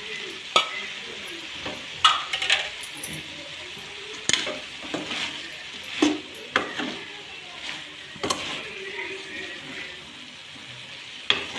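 Metal spoon scraping and knocking against a metal kadai in irregular strokes as cauliflower and chopped tomatoes are stirred, over a steady sizzle of the masala frying in oil.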